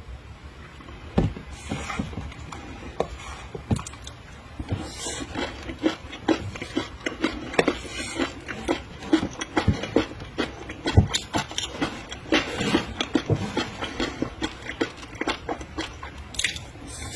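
Close-miked eating of raw seafood: wet biting, chewing and mouth smacks, with an irregular run of short sharp clicks and crunches several times a second.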